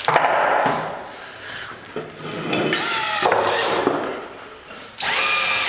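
Cordless drill run in three short bursts, its bit cutting into a wooden panel with a steady high motor whine over the rasp of the wood.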